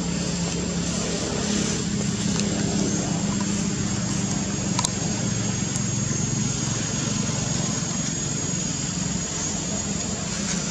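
Steady low rumble of a motor vehicle engine, with a thin high steady tone above it and a few faint clicks.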